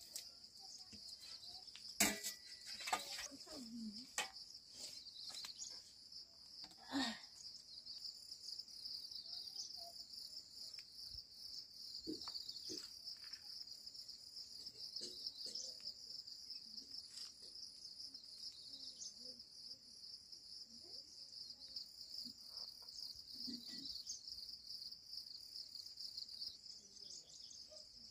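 Steady high-pitched chirring of insects, with a few sharp knocks and clatters in the first several seconds.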